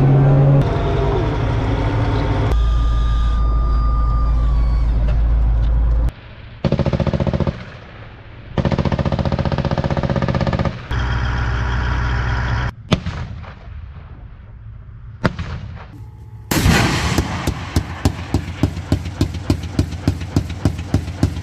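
A Bradley Fighting Vehicle's engine running loud and steady for the first few seconds. Then, after several abrupt cuts and a couple of single shots, its 25 mm chain gun fires a long string of rounds at about three a second through the last five seconds.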